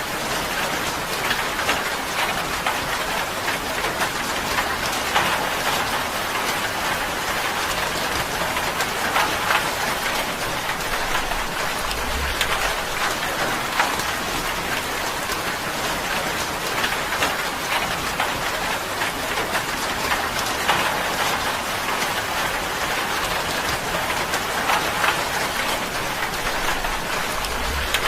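Steady rain falling on tin, a dense, even patter of drops that does not let up.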